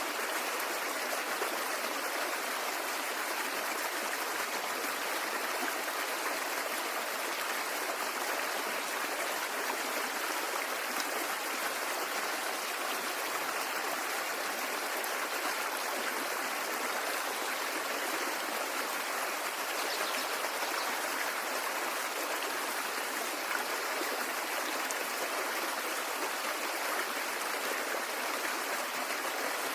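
A stream of running water flowing steadily, an even rushing and babbling with no breaks.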